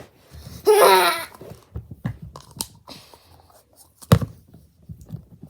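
Play-Doh and small toys being handled: scattered taps, knocks and squishy handling noises, with the sharpest knock about four seconds in. A brief high-pitched child's vocal sound comes about a second in.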